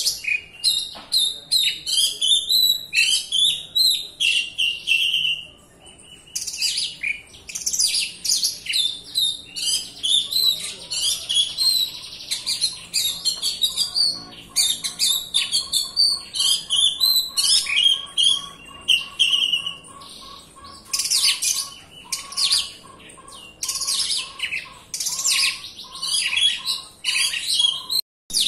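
Oriental magpie-robin (kacer) singing a fast, dense, almost unbroken song of varied chirps, trills and whistles, with a brief pause about five seconds in. From about eleven seconds in, a lower note repeats steadily beneath the song.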